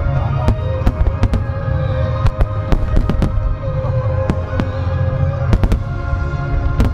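Starmine fireworks barrage: well over a dozen sharp shell bursts, some in quick pairs, over an unbroken deep rumble from the massed firing, with music playing through it.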